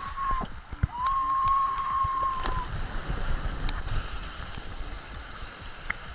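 Rushing water and wind noise on a camera riding down a water slide on an inflatable tube, with scattered knocks and splashes. A long, steady, high whistle-like tone sounds near the start and again for about a second and a half starting about a second in.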